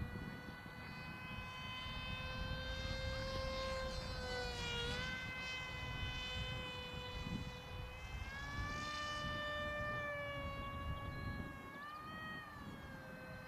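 Motor and propeller whine of a radio-controlled F-22 model airplane flying overhead, one steady pitched tone that rises and falls as it moves and the throttle changes, dipping briefly about five seconds in and again near the end. Low wind rumble on the microphone underneath.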